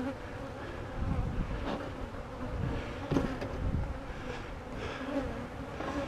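Agitated honeybees buzzing steadily around an opened hive, with a few faint knocks from hive equipment being handled.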